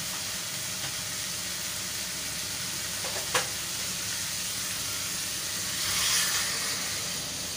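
Potatoes, vegetable peel and masala sizzling steadily in an iron kadhai, with a single knock about three seconds in. About six seconds in, water is poured into the hot pan and the sizzle briefly turns louder and hissier.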